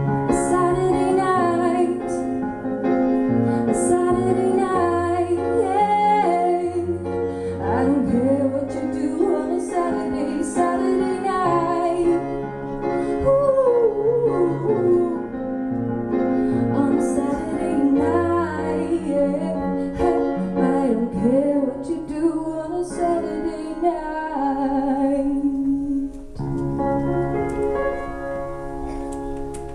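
A woman singing live over keyboard piano chords. The voice stops about 26 seconds in, and the keyboard chords carry on alone and fade away.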